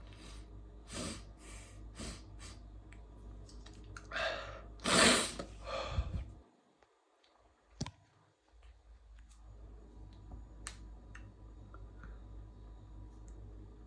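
A person sniffing sharply through the nose about five times, then drawing a breath in and letting out a loud, forceful breath about five seconds in, while trying to bring on a sneeze. A few small sharp clicks follow.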